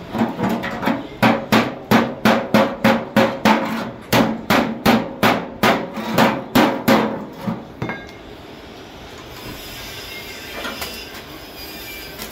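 A hammer rapidly striking the steel wheelbarrow pan at the weld joint, about three blows a second for some eight seconds, each blow ringing out from the hollow metal pan, then stopping.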